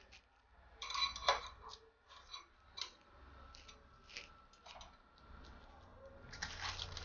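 Light clicks and taps of metal kitchen tongs laying shredded chicken filling onto a dough disc on baking paper, followed near the end by a denser rustle as hands take hold of the dough and paper to fold it.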